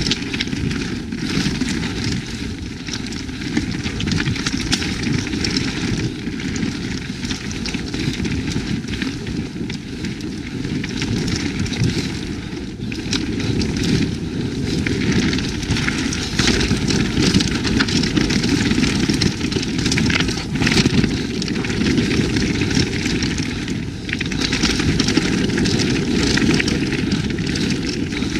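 Evil Calling mountain bike riding fast down a dirt trail: a continuous rushing rumble of tyres and air on the camera, with frequent clicks and rattles from the bike over rough ground, louder and busier in stretches.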